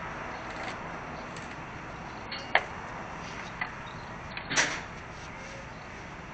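Steady outdoor background hiss with a few sharp knocks: a loud one about two and a half seconds in, a fainter one a second later, and a short cluster near four and a half seconds.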